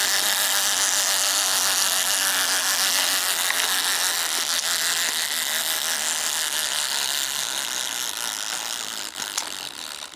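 Wind-up toy fishing game's clockwork mechanism running, a steady whirring rattle of small plastic gears as the pond board turns. It grows gradually quieter toward the end as the spring runs down.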